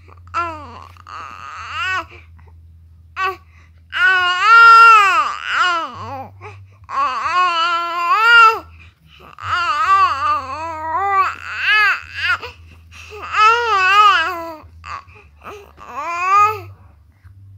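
Baby fussing and crying: a run of short wavering wails, each a second or two long with brief breaths between, quieter at first and louder from about four seconds in.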